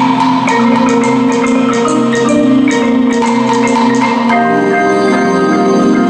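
Indoor percussion ensemble's front ensemble playing music: marimbas and other mallet keyboards strike quick runs of notes over held chords. About four seconds in, the mallet runs thin out and the sustained chords take over.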